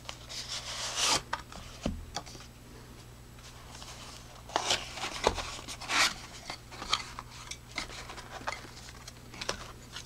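Flashlight retail box being opened and unpacked by hand: irregular taps, scrapes and rustles of packaging.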